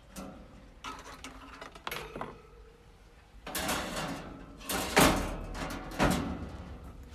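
Wire cooking grates of an El Fuego Portland vertical gas smoker being slid out of their rails: a few light metal clicks, then louder scraping and clattering of the grates, loudest about five seconds in.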